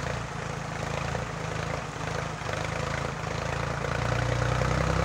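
Escort tractor's diesel engine running under load as it works the field with a disc harrow, growing louder about four seconds in as it comes closer.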